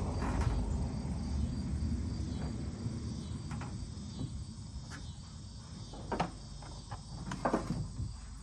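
Insects chirping in a steady high pulsing trill, under a low rumble that fades over the first few seconds. In the second half come a few sharp knocks and clunks from dirt bikes being handled in a pickup bed.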